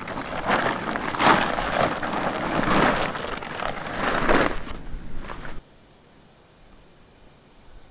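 Tent fabric rustling and flapping loudly as it is unfolded and shaken out, in uneven swishes. It cuts off suddenly about five and a half seconds in, leaving faint insects trilling steadily.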